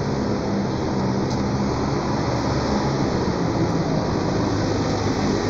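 Steady street noise with the low, even hum of a motor vehicle's engine running close by, its pitch shifting slowly.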